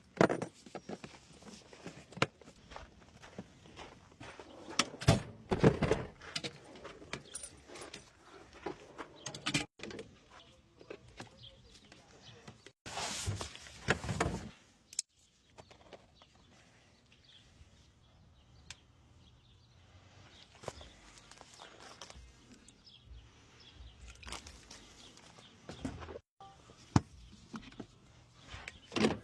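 Scattered clicks, knocks and clanks of hand work on the truck, with a brief rushing noise about thirteen seconds in.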